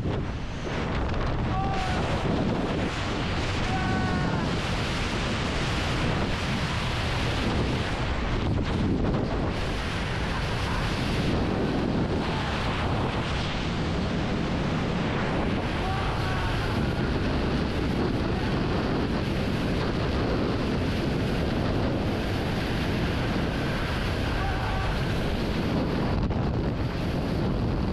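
Strong, steady wind rushing across a camera microphone as a tandem skydiving pair falls through the air.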